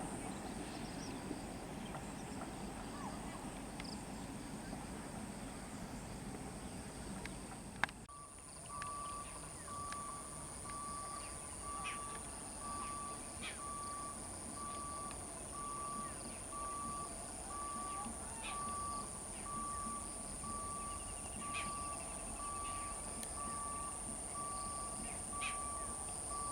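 Quiet outdoor ambience with scattered bird chirps. About eight seconds in the sound changes abruptly, and from then on a single-tone electronic beep repeats steadily, a little faster than once a second.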